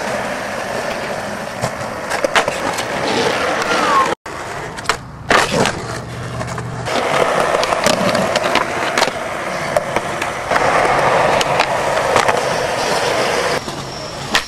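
Skateboard wheels rolling on concrete, with the trucks grinding along a concrete ledge and sharp clacks from pops and landings. The sound drops out suddenly for a moment about four seconds in.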